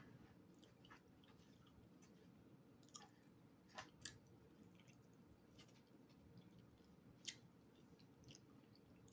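Faint chewing of food, with a few soft mouth clicks and crunches near the middle and again later.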